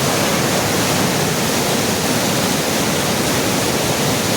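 Loud, steady rush of fast-flowing water, a river running high in flood.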